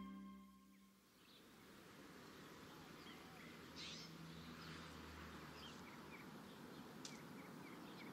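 Logo music fading out in the first second, then faint outdoor street ambience with small birds chirping now and then.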